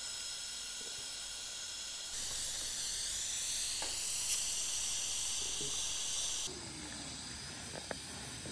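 TIG welding arc on stainless steel pipe: a steady hiss with faint high whining tones, which grows louder and brighter abruptly about two seconds in and drops back just past six seconds.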